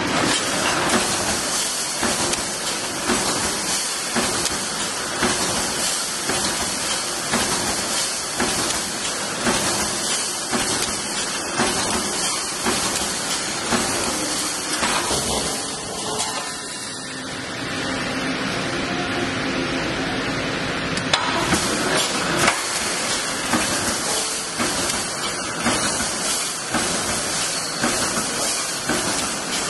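Automatic wire-mesh fence welding machine running: a steady hiss of welding with many clicks and knocks as the wires are welded and the mesh is moved along. About halfway through, the hiss dies down for a few seconds and a lower hum comes through, then the hiss and knocking start again.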